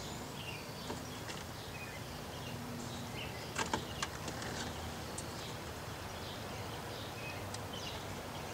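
Outdoor background with scattered short bird chirps, and a few sharp plastic clicks about three and a half seconds in as the cigarette lighter and its wiring connector are worked loose from the car's centre console.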